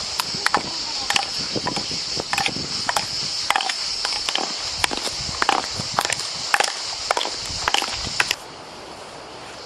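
Wooden clogs clacking on a dirt path, about two steps a second, over a steady high-pitched buzz of cicadas. Both stop abruptly about eight seconds in.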